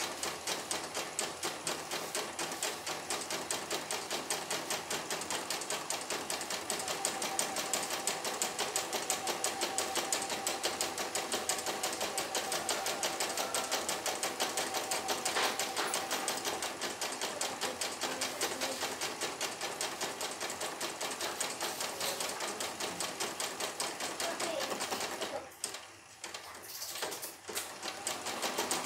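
CNY E900 portable computerised embroidery machine stitching a test design, its needle running in a fast, even rattle of stitches. Near the end it stops for about two seconds, then resumes stitching.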